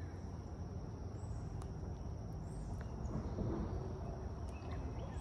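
Outdoor ambience: a steady low rumble, typical of wind on the microphone, under a thin, steady high-pitched hum, with faint rustling about three to four seconds in as the carp is handled and swung aside.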